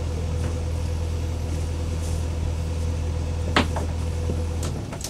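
Motorboat engine running with a steady low hum, eased back about five seconds in as the boat heads for a waiting berth. A single sharp click about three and a half seconds in.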